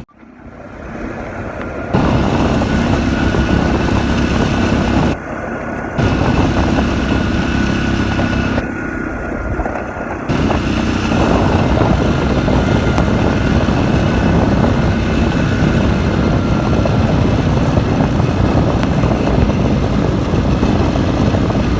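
A motor vehicle's engine running steadily under a dense rush of noise, with a faint steady whine above it. The high end drops out briefly twice, about a third and halfway through.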